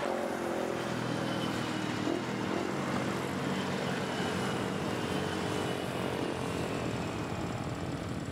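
An engine running steadily: a low, even hum under a haze of noise, with a faint high whine that slowly drops in pitch.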